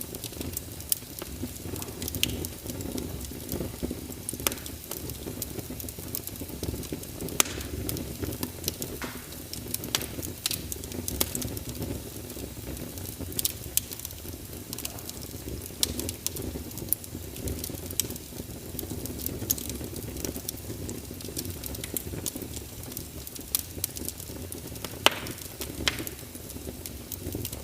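Fireplace fire crackling: a steady low rush of flames with irregular sharp pops and snaps scattered throughout.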